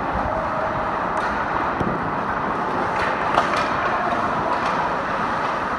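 Ice hockey practice on rink ice: a steady rush of skates and rink noise, broken by several sharp clacks of sticks and pucks. The loudest clack comes about three and a half seconds in.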